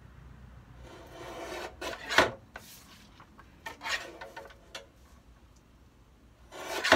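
Guillotine paper trimmer slicing through printed paper: rasping blade strokes with paper rustling and sliding between them. Two strokes stand out, one building to a sharp clack about two seconds in and another at the very end.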